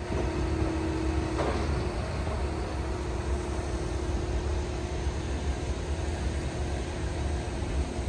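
Steady low rumble and hum of heavy machinery running at a building site, with a steady droning tone throughout.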